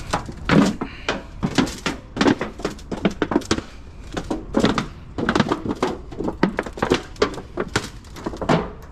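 Thin steel chimney tubes being stomped and crushed flat, a quick irregular run of metallic crunches and thunks as the sheet metal buckles.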